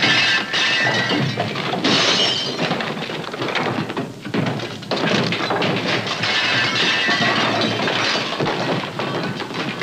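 A 1940s film soundtrack of a bedroom being smashed up by hand: a continuous run of crashes, thuds and shattering as furniture and ornaments are thrown down and broken.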